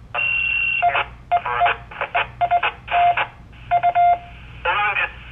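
Radio tones and noise over an amateur radio repeater channel: a steady high beep for about half a second, then a string of short beeps of varying length at one lower pitch, broken up by brief crackling bursts from transmitters keying on and off.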